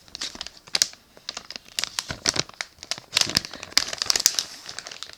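Snack packaging crinkling as it is handled, in irregular clusters of crackles that stop near the end.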